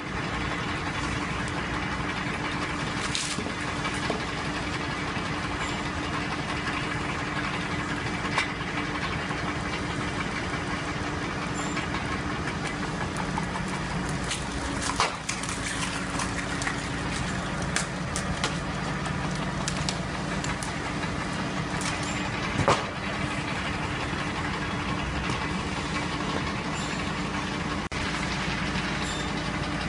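Tractor-driven screw cone log splitter running steadily, its threaded steel cone boring into logs, with a few sharp cracks as the wood splits apart. The loudest crack comes about three quarters of the way through.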